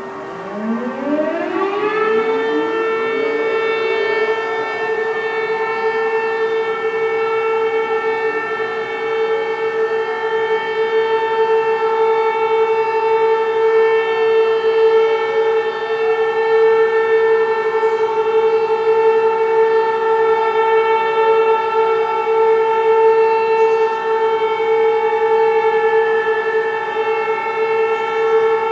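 Air-raid siren winding up over the first two seconds to a steady wail held on one pitch, with a fainter siren tone rising and falling behind it.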